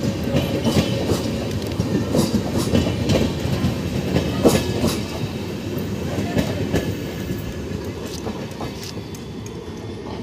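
Brahmaputra Mail's passenger coaches rolling past at speed, the wheels clattering rhythmically over the rail joints. The sound slowly fades after the last coach passes, about halfway through, as the train moves away.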